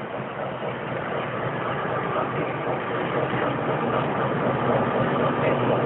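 RENFE 10825 diesel shunting locomotive's engine running steadily as the locomotive moves slowly out of the engine shed, growing louder as it comes closer.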